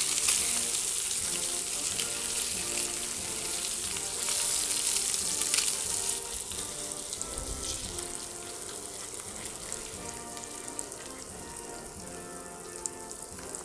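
An egg frying in a hot cast-iron pan, sizzling and crackling. The sizzle drops noticeably after about six seconds. Soft background music plays underneath.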